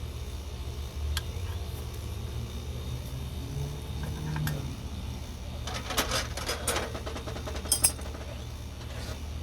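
Light metallic clinks and rattles of small hardware being handled, loudest about six to seven seconds in with a sharp clink near the end, over a steady low hum.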